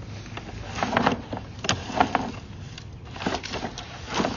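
Irregular clicks and knocks as the sewer camera's push cable is pulled back and handled at the reel.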